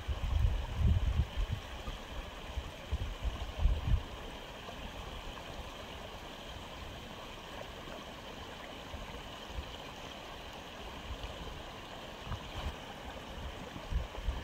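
Aquarium filter water running steadily. Low rumbling bumps come in the first few seconds and again near the end.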